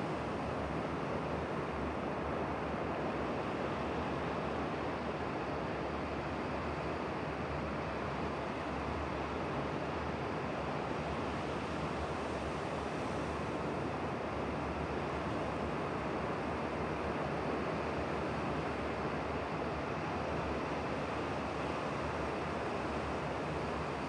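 Sea surf washing on the shore: a steady, even hiss of water with no single breaking wave standing out.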